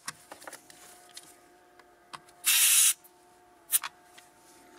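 Short hiss of air escaping at a car tyre's valve as a hand-held pressure tester is pressed on and off it, a sharp burst of about half a second a little past the middle, then a brief weaker puff a second later.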